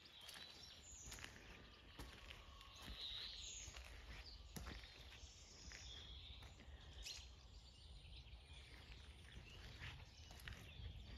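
Near silence: faint outdoor ambience with a few scattered distant bird chirps over a low steady rumble.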